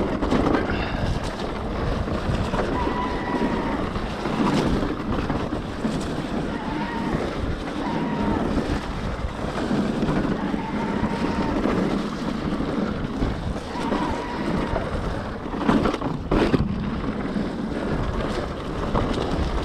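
Mountain bike riding down a trail: wind rushing over the camera's microphone with the steady rumble and rattle of tyres on the dirt, and a couple of sharp knocks about sixteen seconds in.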